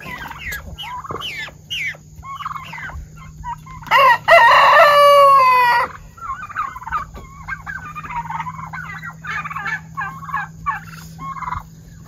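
A flock of domestic turkeys calls all around with short clucks and chirps. About four seconds in a rooster crows once, loudly, for about two seconds.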